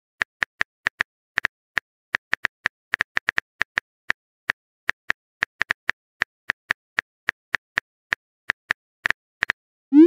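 Phone keyboard typing sound effect: a steady run of short, light clicks at an uneven pace, about four or five a second.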